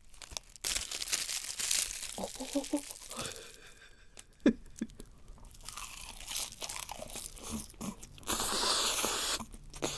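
A sheet of dried laver (gim) crackling as it is folded around spicy stir-fried webfoot octopus, then crunchy bites and chewing of the seaweed-wrapped octopus. A sharp click comes about halfway through, and a louder stretch of crunching lasts about a second near the end.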